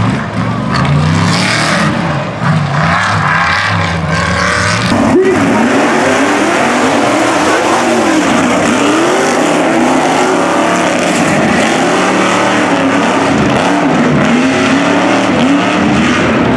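Ford Bronco tuff truck's engine revving hard, its pitch rising and falling again and again. The engine note changes abruptly about five seconds in, to a higher pitch swinging up and down rapidly.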